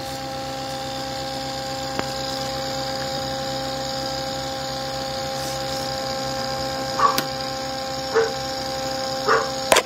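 Bedini-style self-pulsing motor running, its aluminium rotor spinning with a steady hum of two even tones. A few short sounds come in the last three seconds, and a sharp click comes just before the end.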